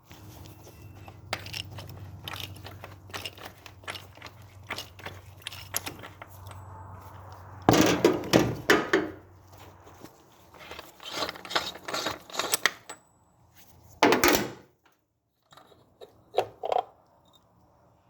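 Metal hand tools clicking, knocking and clattering as a socket is worked on the oil filter housing cap, with louder bursts of clatter about eight, eleven and fourteen seconds in. A low steady hum runs under the first half.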